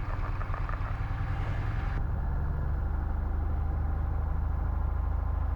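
1967 Cessna 172H's Continental O-300 six-cylinder engine running steadily at about 1700 RPM for the pre-takeoff run-up, heard from the cockpit. Its sound changes abruptly about two seconds in, losing its upper hiss.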